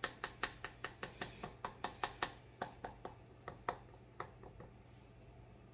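Fork tines docking a raw pie crust, clicking against the pie dish beneath the dough in a quick run of light taps, about four a second, that thin out near the end.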